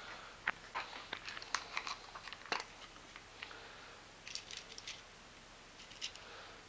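Faint rustling and scattered light clicks of small objects being handled, with a few sharper clicks in the first three seconds.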